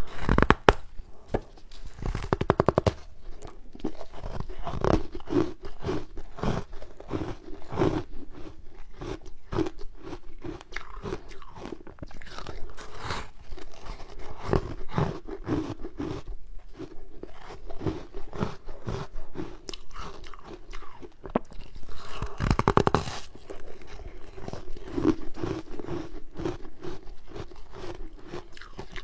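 Ice being bitten and chewed: a steady run of crunches, about one or two a second, with heavier bursts of crunching about two seconds in and again near 23 seconds.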